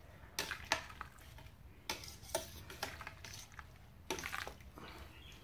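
Metal mash paddle stirring wet grain mash in a stainless-steel malt pipe, with irregular scrapes and knocks against the pot.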